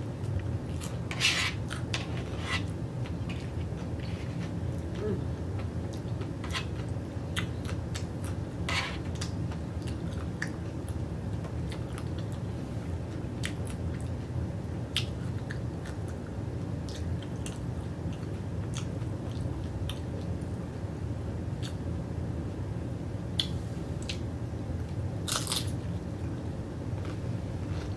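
A person chewing and biting crunchy fried tortilla pieces of nacho tacos close to the microphone: irregular crisp crunches and mouth clicks, a few louder ones about a second in, around nine seconds in and near the end, over a steady low hum.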